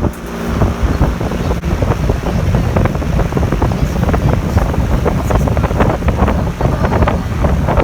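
Wind buffeting the microphone: a loud, constant low rumble with frequent crackles.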